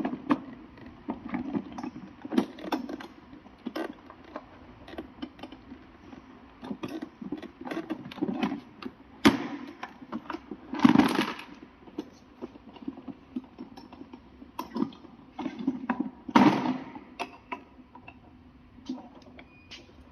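Irregular clicks, knocks and rattles of small hard objects being handled, as in hands-on repair work, with two louder noisy bursts of about a second each, around eleven and sixteen seconds in.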